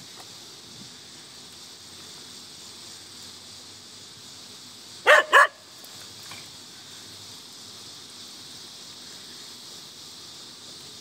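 A dog barking twice in quick succession, about five seconds in.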